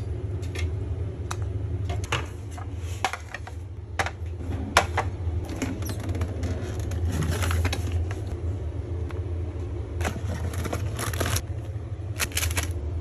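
Scattered clinks and taps of kitchenware as cups, plates and utensils are handled while tea and snacks are served, over a steady low hum. The taps come irregularly, with a cluster close together near the end.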